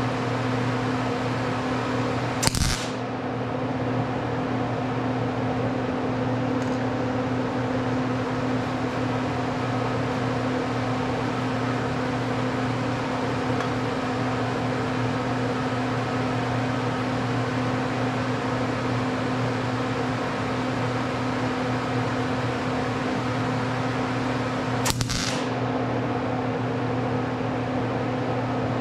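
Steady electrical hum of a running MIG welder, its transformer and cooling fan idling. It is broken twice by a short crackling burst, about two and a half seconds in and again near the end, typical of brief MIG tack-weld arcs.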